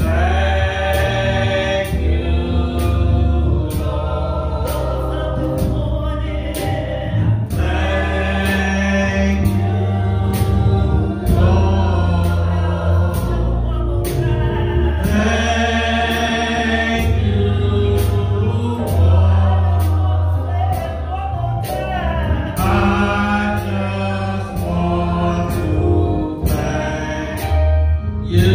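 A gospel worship song sung by a small group of voices over bass and a steady drum beat.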